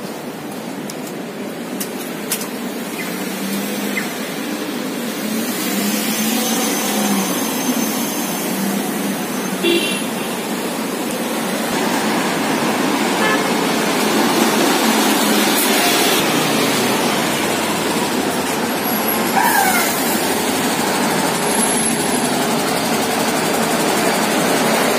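Busy road traffic: buses and cars running past, the noise growing louder about halfway through.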